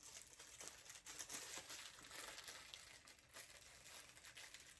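Faint crinkling and rustling of packaging being handled, with a few small clicks.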